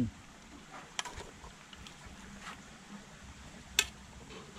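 Two sharp clinks against a metal cooking pot as whole boiled chickens are turned over in it by hand. The first comes about a second in and the louder one near the end.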